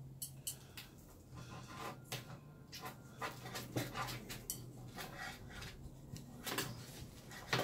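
Serrated knife sawing through grilled meat, with the knife and a fork scraping and clicking against the pan in irregular strokes.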